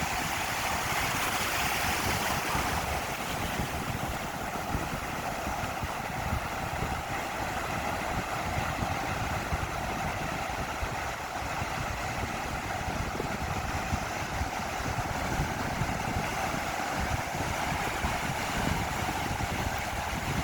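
Steady ocean surf washing on a beach, a continuous hiss, with wind rumbling on the microphone underneath.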